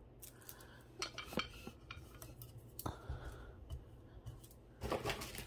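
Beaded costume jewelry clicking and clinking as it is handled: a few light, scattered clicks, the loudest near the end.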